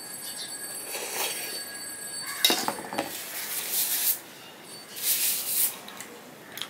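Close-up eating sounds: a steel spoon clinks against a steel bowl, with wet mouth noises from eating milk-soaked bakorkhani and a paper tissue rubbing over the mouth.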